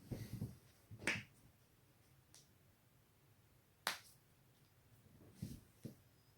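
Neck joints cracking: a scattered series of sharp pops and cracks, the sharpest about one second in and near four seconds, with softer low pops between.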